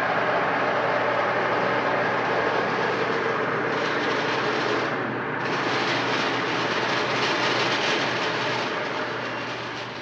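Espresso machine running with a steady, loud hiss. The hiss thins briefly about five seconds in, comes back, and fades near the end.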